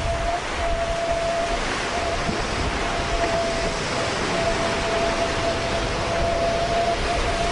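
Wind and sea water rushing past an ocean-racing trimaran under way, a steady noise with a thin high whistle that drops out and comes back several times.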